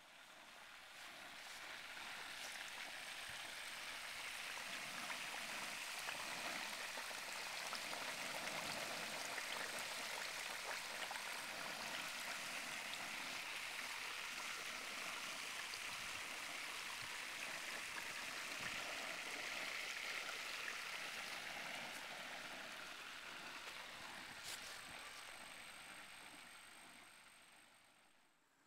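Hot oil bubbling and sizzling in an outdoor turkey fryer pot: a steady sizzle that grows louder over the first few seconds, holds, then fades near the end.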